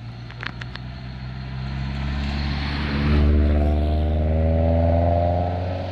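A coach bus's diesel engine pulling away, its drone growing louder and then rising smoothly in pitch as it accelerates, easing off near the end. A few short clicks sound about half a second in.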